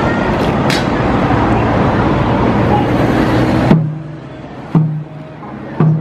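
A loud, steady rush of noise cuts off about four seconds in. Then slow drum beats follow about once a second, each a sharp stroke with a low ringing boom, from the large drum that keeps time for the palace guard-changing march.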